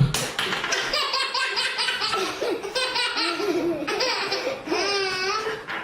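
A baby laughing hard in a long run of quick, repeated giggles, with a longer wavering squeal of laughter near the end.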